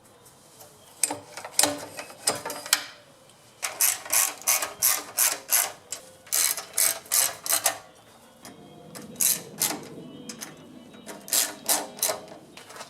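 Ratchet wrench clicking in repeated short strokes, about two or three a second, with pauses between runs, during engine reassembly.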